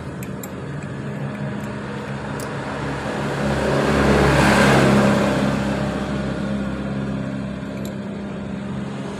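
A motor vehicle engine running with a steady low hum, growing louder about four seconds in and easing back after.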